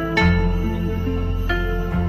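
Background music: a slow, gentle instrumental of sustained chords, with a new note or chord struck about once a second.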